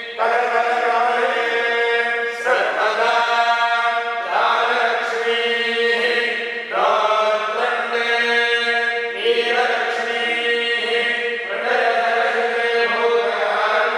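Tirumala Tirupati Devasthanam priests chanting Sanskrit mantras in a continuous, steady recitation. The chant goes in phrases of about two seconds, several of which start on a rising pitch, over a held steady note.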